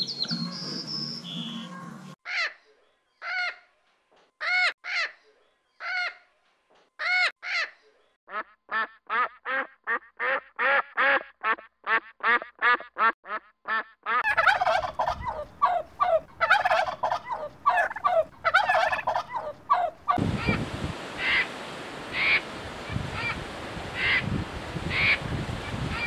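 Birds calling in several cut-together stretches. First come spaced single calls, then a quick even run of about three calls a second. After that a dense chorus of duck calls is followed by repeated calls over a steady rushing noise.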